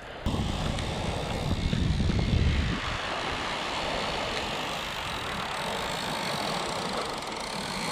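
Bait-drop drone flying a shark bait out over the water, a steady motor whine. A heavy low rumble of wind on the microphone runs for the first few seconds.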